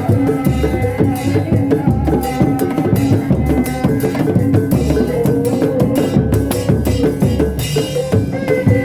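Sundanese reak music for kuda lumping: drums beat a fast, busy rhythm under a loud held melody line, typical of the tarompet shawm that leads this ensemble.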